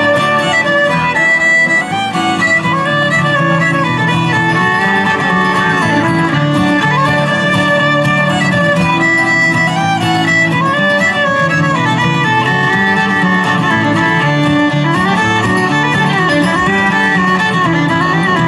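Bluegrass string band playing live: a fiddle carries the melody over guitar accompaniment.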